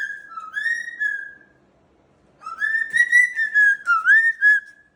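Whistling: two runs of held, wavering whistled notes around one pitch, a short one and then a longer one after a brief pause.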